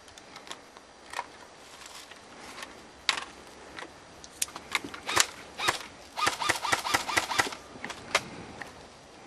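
Airsoft guns firing: scattered single shots, then a rapid burst of shots lasting about a second and a half.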